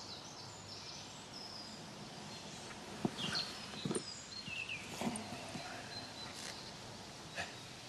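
Outdoor ambience: birds chirping over a steady background hiss, with a few sharp knocks and rustles around the middle.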